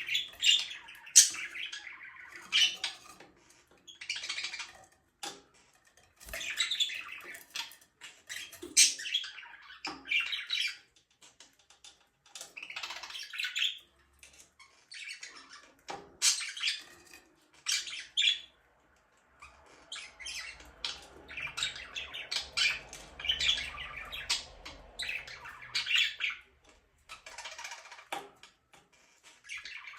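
Budgerigars chirping and squawking in short bursts of quick, high calls, with brief pauses between the bursts.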